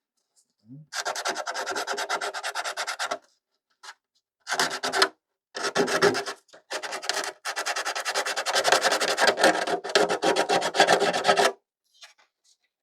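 80-grit sandpaper rubbed by hand along the cut edge of a clear polycarbonate RC car body, knocking off the burrs left by the scissors. It is heard as rapid back-and-forth scrubbing strokes in four spells with short pauses between them, the last and longest lasting about five seconds and stopping about a second before the end.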